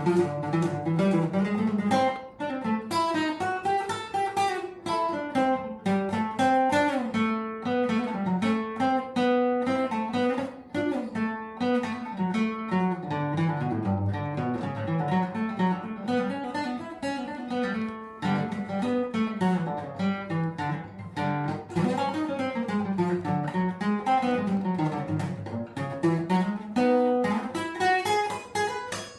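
Acoustic guitar playing an instrumental passage: quick picked notes in a melody that rises and falls without a break.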